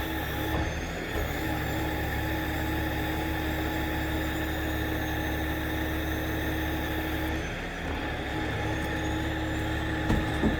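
Large vehicle engine idling steadily, a low even drone with a steady tone above it that stops about seven seconds in. A couple of short knocks come near the end.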